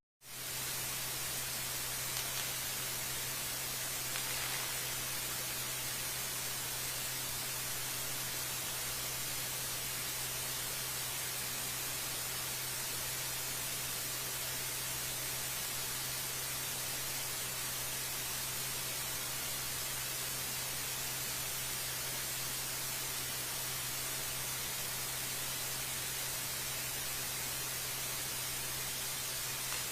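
Steady hiss, like static, with a constant low hum underneath, unchanging throughout and with no distinct bangs or other events.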